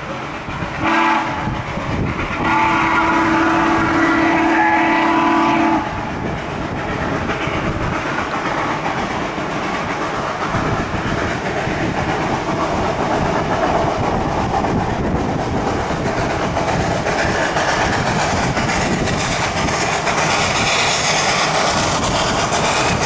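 Chime steam whistle of a 2-8-0 steam locomotive, sounding one short blast and then one long blast about three seconds long. After it comes the steady, slowly growing sound of the locomotive working and its train running as it nears, louder near the end.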